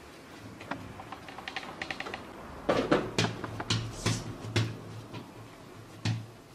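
Hands shaping a ball of chocotone dough on a wooden tabletop: a run of light taps, then a cluster of louder pats and thumps of the dough against the table from about two and a half seconds in, and one more near the end.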